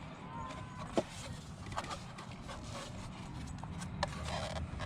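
A few light clicks and knocks of parts being handled, the sharpest about a second in, over a low steady hum.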